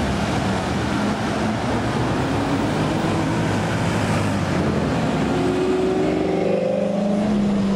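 BMW F10 M5's twin-turbo V8 through an aftermarket Akrapovic exhaust, driving past in city traffic. Its note rises slowly in pitch through the second half as the car pulls away.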